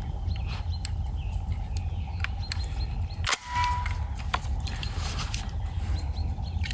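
A series of sharp metallic clicks and knocks as a five-shot semi-automatic shotgun is handled at its receiver, the loudest about three seconds in, over a steady low rumble.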